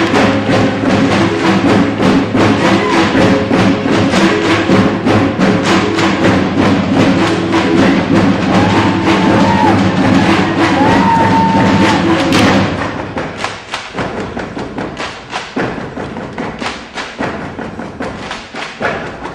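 Music with held tones over a fast, steady percussive beat, cutting off sharply about two-thirds of the way through. Quieter scattered thumps and knocks follow.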